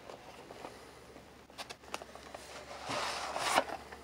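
A VHS cassette being handled and slid out of its cardboard sleeve: a few light clicks, then a scraping rustle about three seconds in as the tape comes out.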